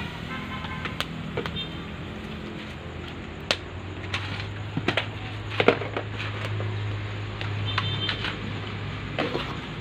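Open wood fire crackling under a pot of tinola on the boil, with scattered sharp cracks over a steady low hum.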